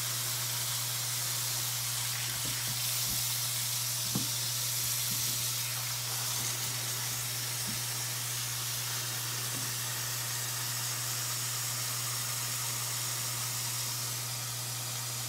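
Kitchen faucet running a steady stream of water into a stainless steel pan of cut pumpkin pieces, with a low hum underneath. A few light knocks sound in the first few seconds as the pieces are moved by hand.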